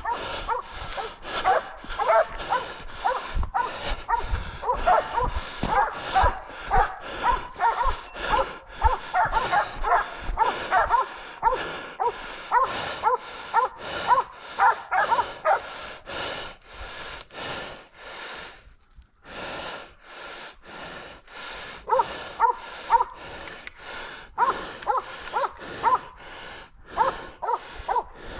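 Hunting dogs barking fast and without let-up, two or three barks a second, as dogs do when baying a wild boar in the brush. About two-thirds through the barking pauses for a couple of seconds, then starts again.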